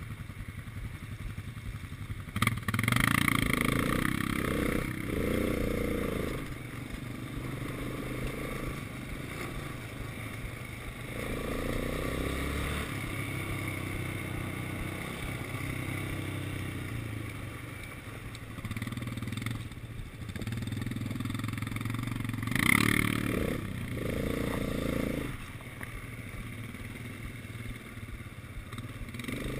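Quad bike engine running over a dirt track, revving up and down several times as the throttle opens and closes, with clattering. Two louder rushes of noise come about two and a half seconds in and again near the end.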